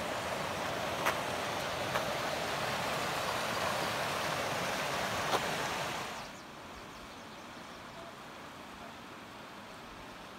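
Creek water rushing steadily, with a few faint clicks; about six seconds in it drops to a quieter, softer hiss.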